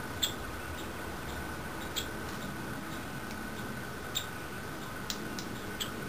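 Fledgling Nuttall's woodpeckers squeaking. About six short, high squeaks come at irregular intervals, the loudest about a quarter second in and several close together near the end.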